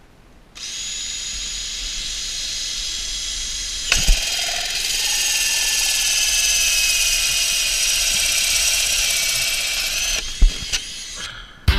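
Power drill cutting a hole through the house wall: a steady high whine that starts just after the beginning, sags a little in pitch as it cuts, with a sharp knock about four seconds in. The drill stops about a second and a half before the end, followed by a couple of clicks.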